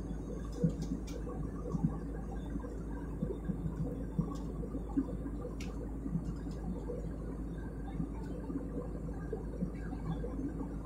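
Steady airliner cabin drone of engines and rushing air, heard from a window seat in flight, with a few faint clicks.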